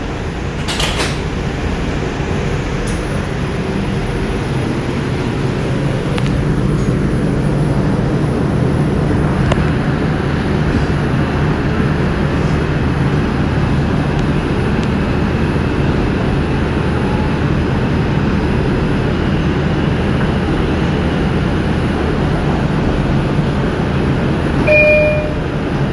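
R142 subway car in motion through a tunnel, heard from inside the car: a steady rumble of wheels on rails and running gear, with a sharp click about a second in and a short high tone near the end.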